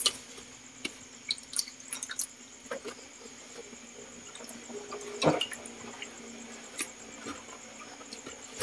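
Wet, soft ingredients dropped into an aluminium pot, giving scattered small wet plops and drips, the loudest about five seconds in, over a faint steady hum.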